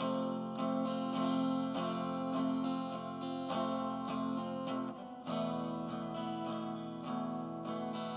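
Instrumental background music led by a strummed and plucked acoustic guitar, shifting to a new passage about five seconds in.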